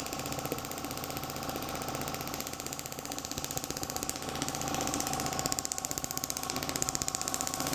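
A small motor running steadily with a rapid, even buzzing pulse, growing slightly louder in the second half.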